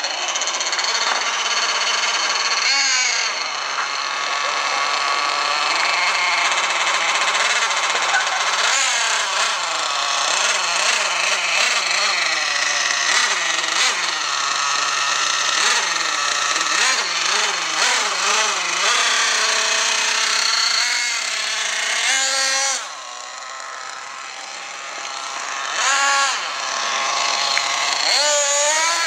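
Small two-stroke nitro engine of a Thunder Tiger Sledge Hammer S50 1/8-scale RC monster truck, revving up and down over and over under throttle. About three quarters of the way through it drops to a quieter idle, then gives two short throttle blips near the end.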